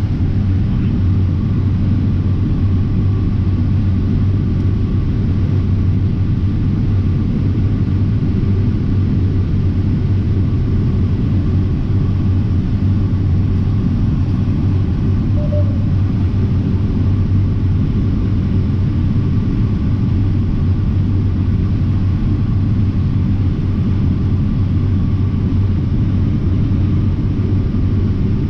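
Steady low drone of a 549 hp John Deere X9 1000 combine running under load while harvesting corn, heard from inside the cab, with an even hum and no change in pitch.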